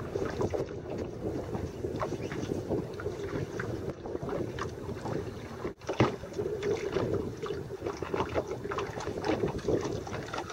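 Wind buffeting the microphone, with water slapping against the hull of a small flats skiff.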